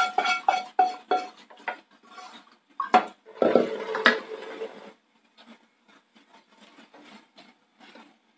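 Wooden spatula knocking and scraping masala out of a frying pan into a stainless-steel mixer jar, the metal ringing briefly with each knock. About three seconds in comes a louder knock and a second of clatter as the pan is put down, then only faint light taps.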